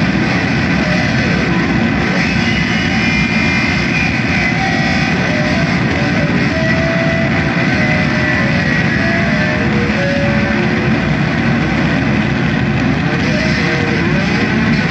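Loud, unbroken wall of distorted noise music coming from amplifier speaker cabinets, with short high tones coming and going over it.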